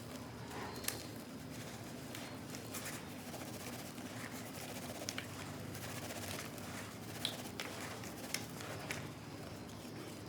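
Clumps of soft, crunchy black sand crumbling in a bucket with water. Scattered crisp crackles and crunches sound over a low steady background.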